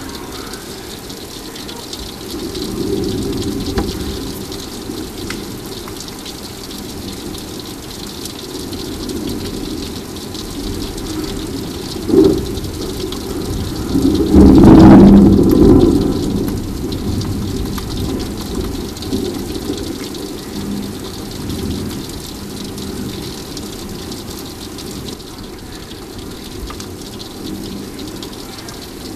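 Thunderstorm: steady rain with rolling thunder. A sharp crack about twelve seconds in is followed a couple of seconds later by the loudest long rumble, which fades slowly; a lighter rumble comes earlier.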